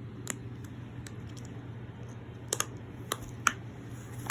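Irregular plastic clicks and taps from a plastic puppet fidget toy being handled, a few scattered over the seconds with a close pair about two and a half seconds in and the sharpest near three and a half seconds, over a steady low hum.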